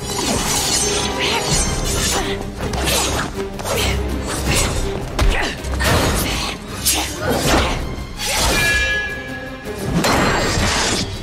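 Film fight sound effects: a rapid, continuous run of hits, crashes and whooshes as a bladed cyborg attacks, over background score music.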